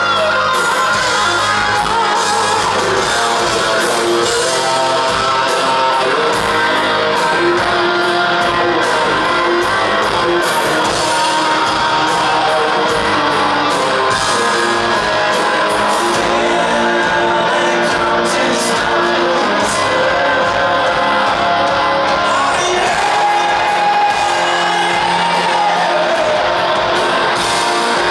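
Rock band playing live: electric guitars, drums and singing, heard from the audience in a large hall.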